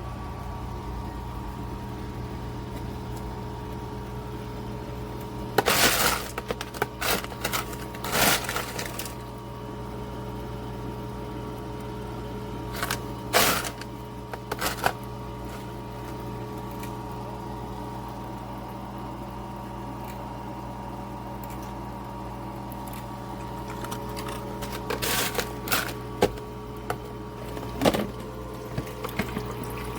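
Countertop nugget ice maker running with a steady, even hum, broken three times by bursts of sharp clatters and cracks: about a fifth of the way in, near the middle, and again near the end.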